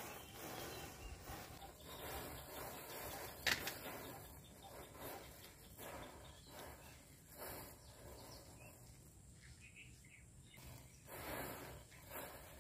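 A line of matchsticks burning in a chain, the match heads catching one after another with faint irregular fizzes and flares, plus one sharp crack about three and a half seconds in.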